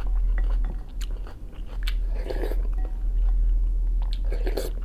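Close-up eating of pea soup from a wooden spoon: chewing and wet mouth sounds with a few light clicks, and two short noisy slurp-like bursts, about two seconds in and near the end, over a steady low hum.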